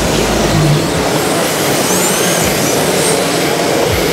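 Loud, steady exhibition-hall din with 1:10 scale radio-controlled drift cars running on the track. A brief high whine rises and falls about two seconds in.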